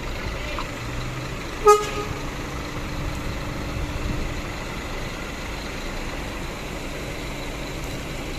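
Bus horn giving one short toot about two seconds in, a single plain note rather than a multi-note telolet melody, over the steady low rumble of a bus's diesel engine running.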